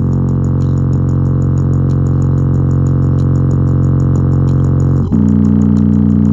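Small oval loudspeaker driven hard with a steady low bass tone, its cone flexing with large excursion. The tone shifts in pitch about five seconds in, with a faint regular ticking high up, about five ticks a second.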